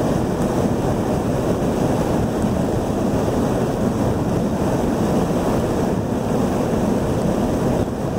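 Steady road and wind noise inside a moving car's cabin at highway speed.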